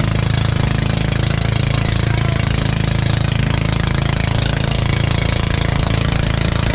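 Motorized outrigger fishing boat's engine running steadily at cruising speed with a fast, even pulse, under the rush of the wake.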